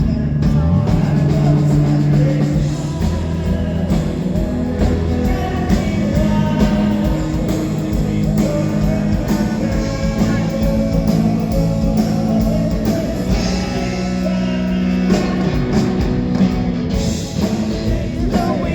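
Live rock band playing a song, with singing and guitar.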